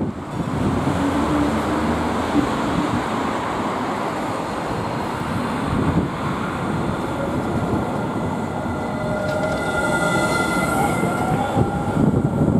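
Alstom Citadis low-floor tram pulling away from a stop: running noise of wheels on rail, with a whine from the drive that rises in pitch through the second half as it gathers speed.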